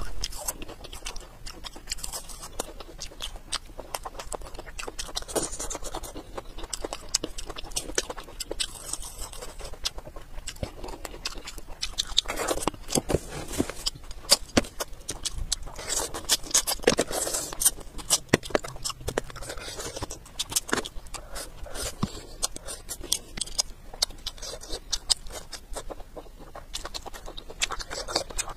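Close-up eating sounds: chewing and crunching of flour-coated fried fish in a thick sauce, with many small wet mouth clicks and smacks throughout.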